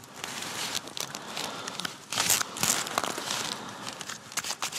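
A deck of playing cards being handled and sorted in the hands: irregular rustling and crinkling with light snaps of the cards, loudest about two to three seconds in.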